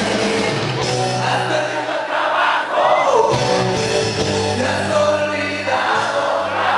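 Loud music played through a large dance sound system, with a voice singing over it. The bass drops away briefly near the middle.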